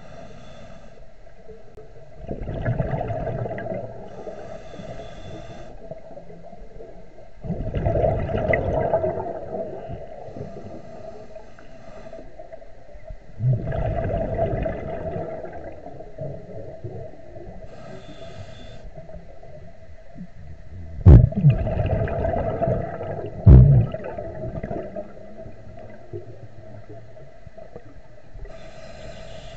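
Scuba diver breathing through a regulator underwater: a short hiss on each inhale, then a burst of bubbling exhaust, about every five to six seconds. Two sharp knocks come close together about two-thirds of the way in.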